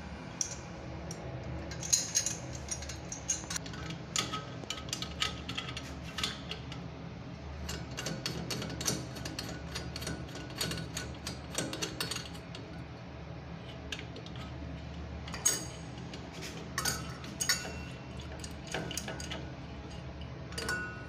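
Chrome wall-mounted bath mixer and its nuts clinking and clicking against the wall connectors as the mixer is fitted and its nuts are done up by hand and with an adjustable wrench: many irregular, sharp metallic clicks over a low hum.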